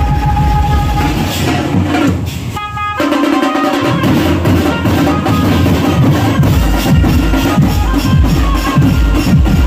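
A pad band's large double-headed stick-beaten drums play a fast, dense rhythm, with a melody line over them. The bass drums drop out briefly about three seconds in, then come back heavier.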